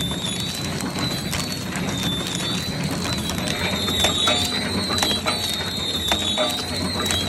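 Peanut candy factory machines running: a steady mechanical clatter with scattered sharp clicks and a high, slightly wavering tone.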